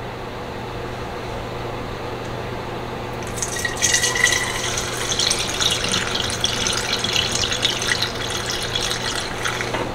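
Liquid pest-control mixture being poured from a pump-sprayer tank into a plastic spray bottle. The splashing pour starts about three seconds in and runs unevenly after that, over a steady low hum.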